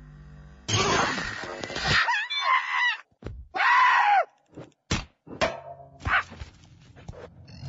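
Cartoon fight sound effects: a loud crash lasting over a second, then a monkey screeching twice in long arched cries, then a few sharp hits.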